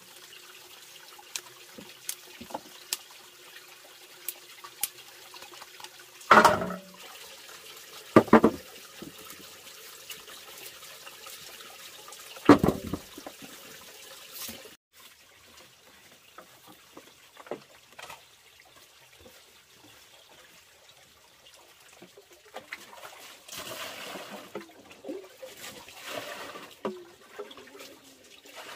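Turmeric roots dropped into an aluminium basin, three sharp knocks in the first half, over a faint trickle of water. Near the end, water is scooped and poured from a jar with a plastic cup, splashing for several seconds.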